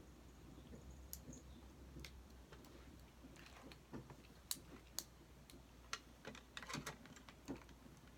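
Plastic LEGO bricks clicking and clattering faintly as they are picked through and handled, with sharper clicks coming more often in the second half.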